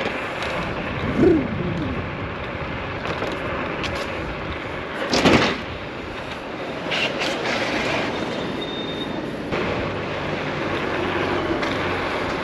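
Steady wind and tyre-on-road rumble from riding a Nami Klima electric scooter, with a short, loud bump about five seconds in.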